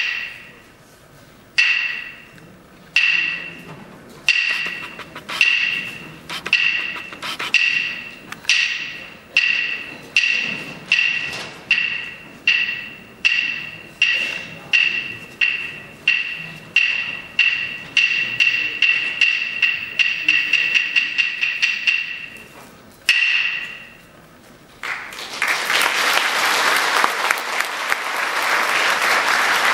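Hand percussion of a chindon-ya troupe: single sharp, ringing strokes, slow at first and speeding up steadily into a quick roll, then one last stroke. Audience applause follows for the last few seconds.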